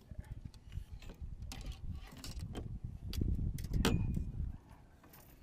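Irregular knocks, rubbing and clicks of fishing gear being handled in a boat, over a low handling rumble. It builds to its loudest with a sharp click about four seconds in, then dies away.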